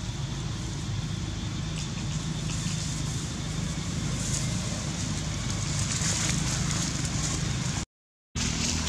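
Steady low mechanical rumble, like a running engine, that holds even throughout and cuts out briefly about eight seconds in.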